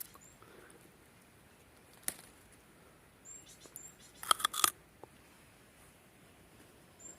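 Brief high chirps in pairs from a small bird, with a sharp click about two seconds in and a quick cluster of loud cracks or crunches about four and a half seconds in.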